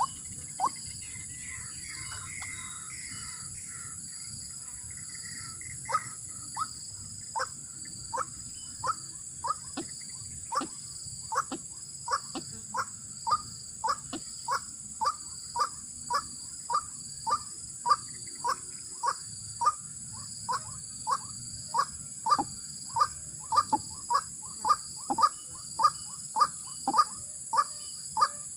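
White-breasted waterhen (ruak-ruak) giving its repeated 'kwak' call, short notes at about one and a half a second. The calling pauses briefly near the start, with fainter higher notes, and picks up again about six seconds in.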